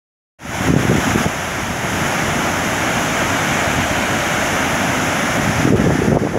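Liên Khương waterfall in spate: a steady rush of heavy, muddy water pouring over a broad rock ledge. Gusts of wind buffet the microphone shortly after the start and again near the end.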